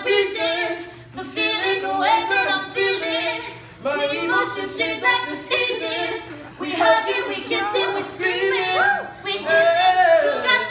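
Unaccompanied singing by a woman and a man, with held notes and pitch-bending vocal runs and no instruments.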